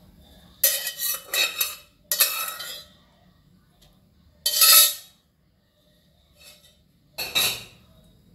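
Steel pot and perforated steel colander clattering and rattling against each other in four short bursts, with a metallic ring.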